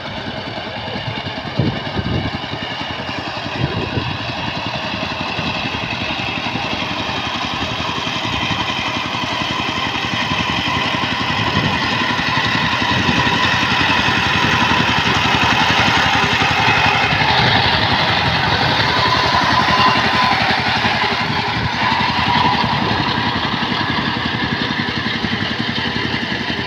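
Two-wheel power tiller's single-cylinder diesel engine running steadily while pulling through a flooded, muddy paddy field. It grows louder as the machine comes close, then eases off a little, with two sharp knocks in the first few seconds.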